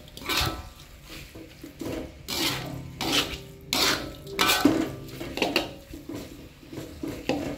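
A metal spatula stirring chunks of chicken in spice paste around a wok, scraping and rubbing on the pan in repeated uneven strokes.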